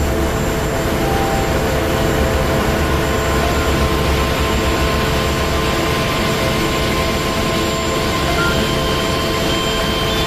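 Ship's engine-room machinery running: a loud, steady drone with a deep rumble and several constant hum tones over it.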